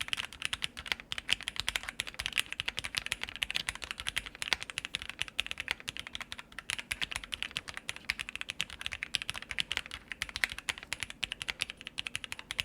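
Steady fast typing on a custom 60% mechanical keyboard: lubed Gateron Milky Yellow linear switches with GMK keycaps in a walnut-wood TOFU60 case with tape and PE foam mods. A dense, continuous run of crisp keystrokes.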